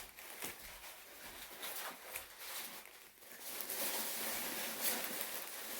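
Faint rustling with scattered light clicks of gift packaging being handled and opened.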